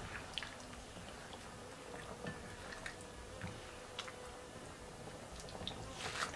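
Chicken and tomato broth simmering in a wok: faint, irregular bubbling pops and ticks, with a slightly louder burst near the end.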